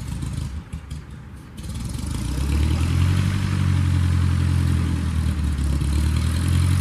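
An engine running steadily with a low, even hum. It dips briefly, then comes back louder about two seconds in and holds.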